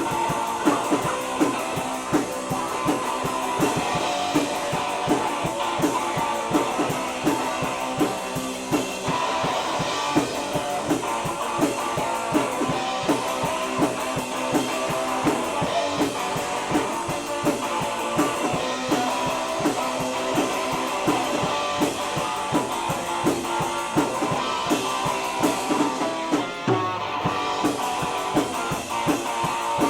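Rock band music: guitars playing an instrumental solo section over a steady, driving drum-kit beat and bass, with a brief break in the drumming near the end.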